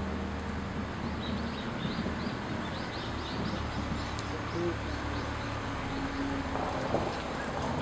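Small birds chirping, short rising calls repeated many times, over outdoor background noise with a low steady hum.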